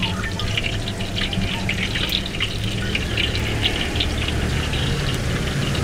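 Battered oyster fritters deep-frying in a wok of hot oil: a steady sizzle with many small crackles and spits, over a steady low hum.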